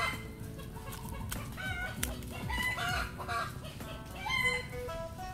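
Chickens clucking and calling several times, one short call every second or so.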